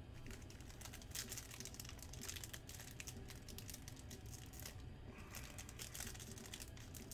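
A Panini Select basketball card pack's foil wrapper being torn open and crinkled by hand, with dense irregular crackling.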